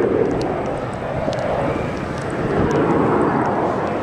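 Red Arrows' BAE Hawk T1 jets passing in formation, a steady jet rumble that swells about three seconds in.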